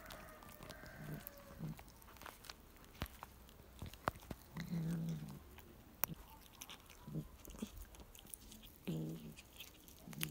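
A cat chewing and crunching on a pigeon carcass: wet biting with sharp clicks of bone and quill, broken by short low sounds every couple of seconds.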